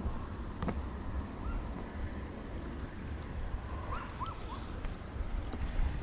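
Steady high-pitched insect drone over a low rumble, with a few short bird chirps, three of them close together about four seconds in.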